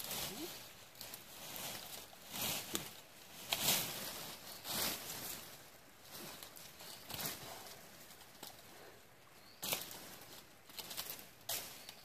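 Dry, tangled wild rose canes and brush rustling and crackling as they are pulled apart and cut by hand, in irregular spells with a few sharper cracks.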